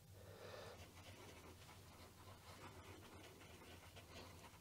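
Near silence: faint scratching of a small stick stirring two-part epoxy glue on a paper note pad, over a low steady hum.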